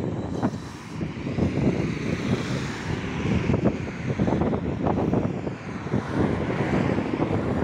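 Wind buffeting the microphone of a camera on a moving bicycle, over road traffic noise: an uneven, gusting rumble.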